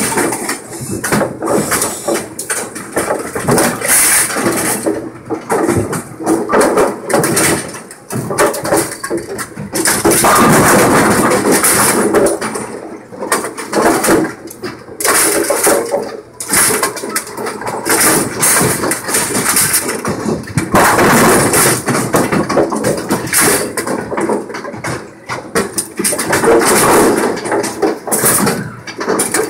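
AMF 82-70 bowling pinsetter running: a loud, continuous mechanical clatter with repeated knocks and bangs as pins are carried along the distributor and dropped into the turret bins.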